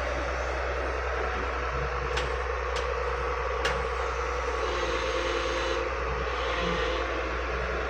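Excavator engine running steadily with a deep hum, with three short sharp clicks a little over two seconds in.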